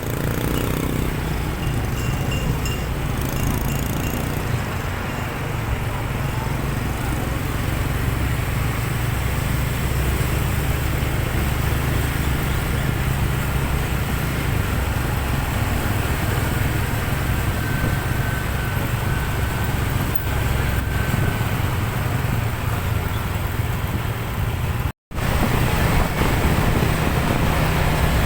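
Vehicle engine running steadily on the move, a low rumble with road and wind noise over it; the sound cuts out for a moment near the end.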